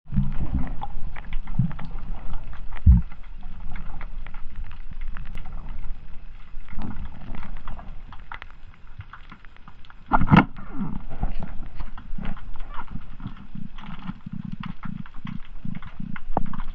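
Striped beakfish, freshly caught by spear, grunting in a series of short low pulses, amid scattered clicks and knocks, the loudest about ten seconds in.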